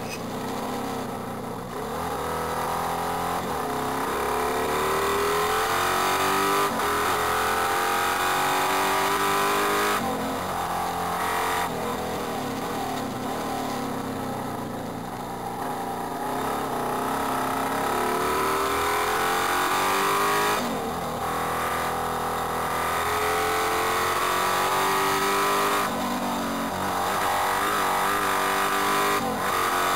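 BMW R100 sidecar outfit's big-bore air-cooled flat-twin engine at racing revs, heard from on board. Its pitch climbs and falls with the throttle through the bends, broken by short dips at several gear changes.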